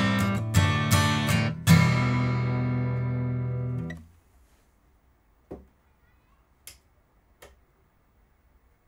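Steel-string acoustic guitar strummed, miked and recorded through a Cranborne Camden EC1 microphone preamp. A few quick strokes, then the last chord rings and is stopped suddenly about four seconds in. A few faint clicks follow.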